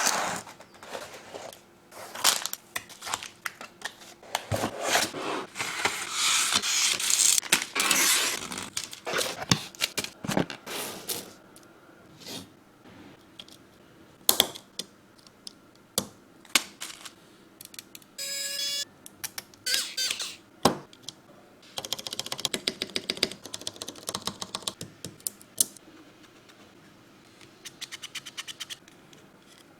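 Parts of a mechanical keyboard kit being handled and assembled: irregular clicks, snaps and taps, with stretches of rustling and scraping and a brief ringing tone a little past the middle.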